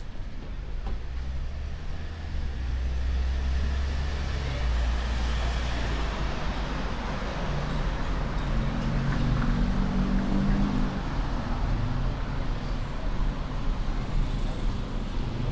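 Road traffic alongside: a steady low rumble of vehicle engines and tyres, with one engine's pitched hum standing out from about eight to eleven seconds in.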